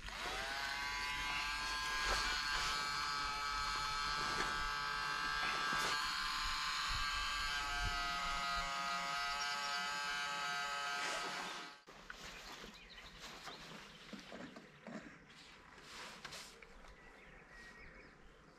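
Small electric blower spinning up and running with a steady high whine, blowing the smoke of a burning anti-varroa fumigation tablet into a beehive. It stops suddenly about twelve seconds in.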